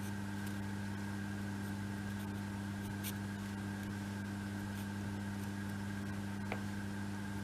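A steady electrical hum with a few constant low tones, and two faint clicks of small kit pieces being handled, about three seconds in and again near the end.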